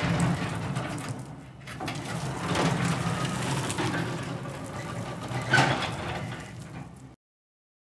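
BT OSE250 battery-electric order picker with long forks being driven: its electric drive motor humming and the truck running over asphalt, easing off briefly about a second and a half in and picking up again. A sharp clunk about five and a half seconds in, and the sound cuts off suddenly near the end.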